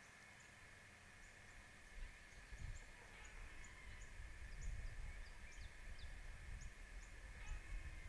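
Faint outdoor ambience: small birds giving many short, high, falling chirps over a steady faint high hum, with an irregular low rumble coming in about two seconds in and making up the loudest part.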